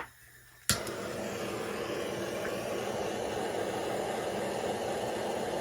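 Handheld gas torch lit with a sharp click about two-thirds of a second in, then a steady hiss of the burning flame as it heats the rifle barrel for soldering the sight.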